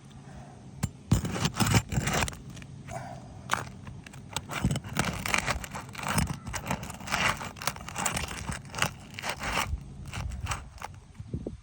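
Asphalt roof shingle being pried and worked loose with a roofing tool: irregular scraping, crackling and crunching of the shingle and its grit, with a few sharper knocks about a second in.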